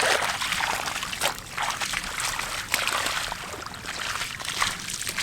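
Shallow water sloshing and trickling, with irregular splashes, as it is stirred by hand.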